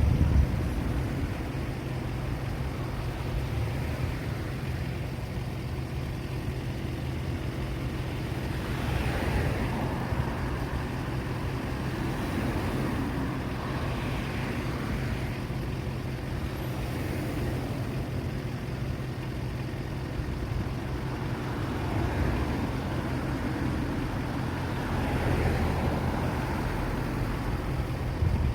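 Road traffic: a steady low hum of engines with several vehicles passing, the loudest about nine, fourteen and twenty-five seconds in.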